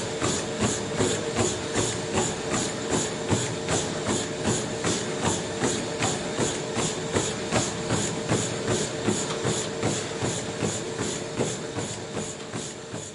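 A gym treadmill at a steady running pace: the belt motor hums steadily under evenly spaced footfalls thudding on the deck, about three a second. The sound fades out near the end.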